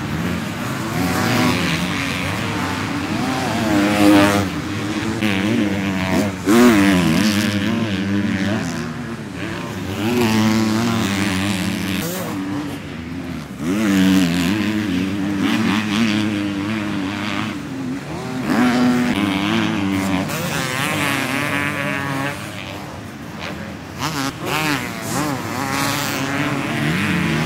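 250cc motocross bikes racing on a dirt track, engines revving up hard and dropping off again and again as riders accelerate out of corners and over jumps.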